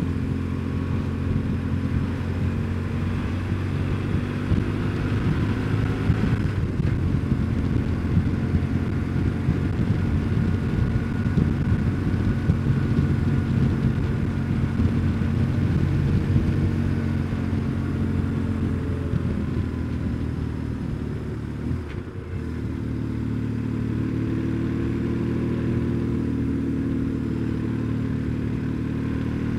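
BMW R1150GS's air-cooled boxer twin engine running under way, a steady engine note with road and wind noise; about two-thirds of the way through the note dips briefly, as in a gear change, then settles steady again.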